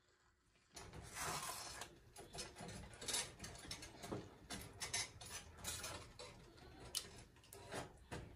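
Silicone spatula stirring thick cheese sauce in a metal skillet, giving a run of irregular clicks, taps and scrapes against the pan that starts about a second in.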